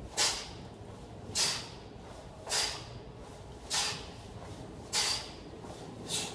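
A man's sharp, forceful exhales during exercise reps, six hissy breaths out at an even pace of about one every 1.2 seconds.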